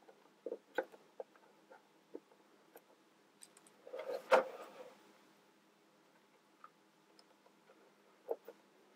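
Plastic building-toy pieces being handled and pushed together: scattered light clicks and taps, with a louder clatter about four seconds in.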